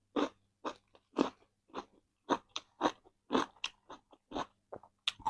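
Chicken being chewed close to the microphone, in a string of sharp, uneven crunches about two or three a second.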